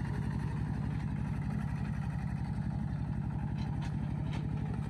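An engine running steadily with a fast, even low throb. There are two light clicks near the end.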